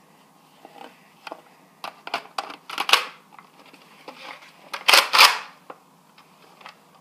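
Plastic clicks and clacks of a Nerf Crossbolt toy blaster as its magazine is loaded and the blaster is handled: a run of small clicks, then two louder clacks about three and five seconds in.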